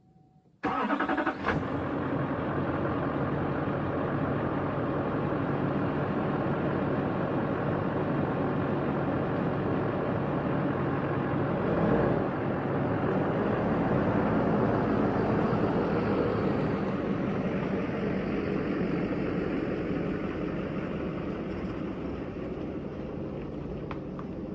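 Truck engine running with steady road noise, heard from inside the cab while driving, starting abruptly about half a second in.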